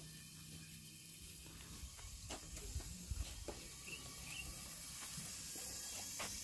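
Soft clicks and scrapes of a small knife peeling a raw sweet potato by hand, over a faint steady hiss.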